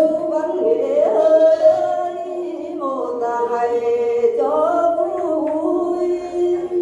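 A voice singing lượn, the Tày folk song style, in long held notes that slide and waver between pitches, with a couple of short breath breaks.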